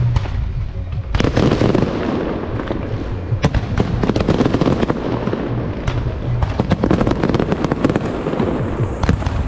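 Fireworks display: aerial shells bursting and crackling in a continuous barrage over a low rumble. The barrage thickens about a second in, and near the end there is a dense run of sharp cracks.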